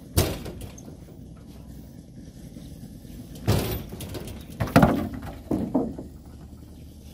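Heavy teak utility poles being unloaded off a flatbed truck: hollow wooden knocks and thuds as the poles are pushed across the truck bed and dropped. One sharp knock comes just after the start, and three more close together in the second half.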